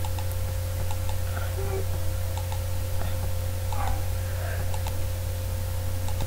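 Steady low electrical hum with a few faint computer mouse clicks scattered through it.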